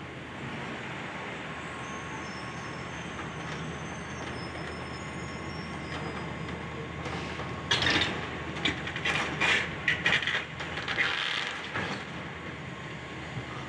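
Excavator demolishing a building: a steady engine drone, then from about halfway in several seconds of loud cracking and crunching as debris breaks apart.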